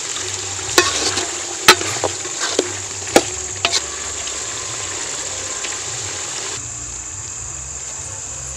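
Goat offal curry sizzling and bubbling in a metal kadai, with a steel ladle clinking sharply against the pan several times in the first four seconds.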